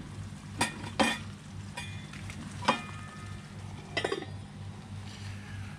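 A stainless steel lid being set onto a camping skillet: a few sharp metal clinks with a short ring. A steady low hum from the gas canister stove runs underneath.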